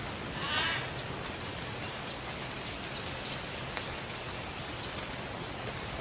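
A brief harsh call from a scarlet macaw about half a second in, over a steady hiss of ambience with short high ticks repeating roughly twice a second.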